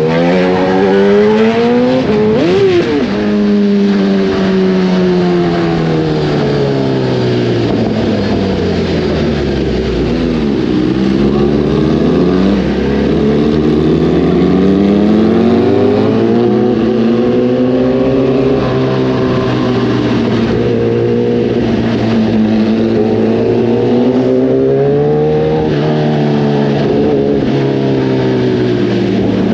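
Kawasaki ZX-10R's inline-four engine through an Arrow racing exhaust, its pitch rising and falling as the bike speeds up and slows down. There is a quick rev blip about two and a half seconds in, and the engine drops low near ten seconds before pulling up again.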